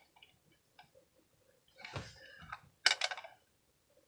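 A few faint scattered ticks, a short rustle about two seconds in, then a quick cluster of sharp clicks about three seconds in.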